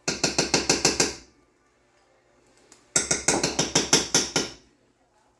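Fork beating eggs in a bowl: two quick runs of rapid, ringing clinks, about eight a second, the first about a second long and the second about a second and a half long starting about three seconds in.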